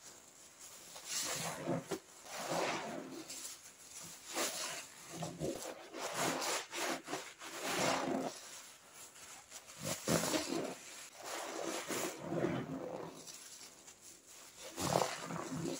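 Repeated rasping rubbing and squishing strokes, one every second or so, each swelling and fading, from pine toilet cleaner and toilet blocks being worked by hand.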